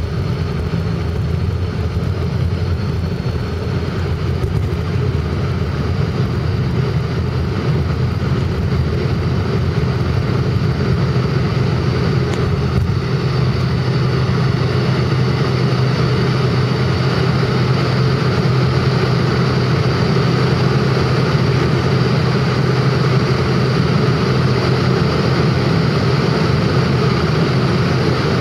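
Airliner engines at takeoff power, heard inside the cabin through the takeoff roll, lift-off and initial climb. It is a loud steady drone with a high steady tone over it, growing a little louder over the first ten seconds or so.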